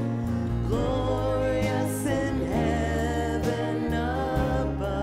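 Worship song: a voice singing over instrumental accompaniment, with low held bass notes that change every second or so.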